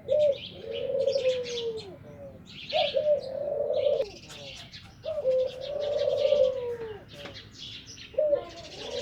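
Doves cooing repeatedly, about four long coos spaced a couple of seconds apart, while small birds chirp high and busily over them.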